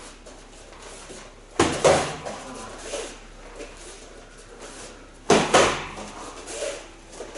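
Boxing-gloved punches smacking into padded spherical training mitts: two quick one-two combinations, each two strikes about a third of a second apart, the first about a second and a half in and the second near the end.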